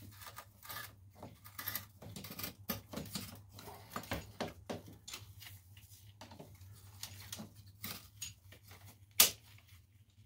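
Screwdriver prying and scraping at plastic circuit breakers in a breaker panel, working a breaker loose: irregular clicks and scrapes, with one sharp click about nine seconds in. A steady low hum runs underneath.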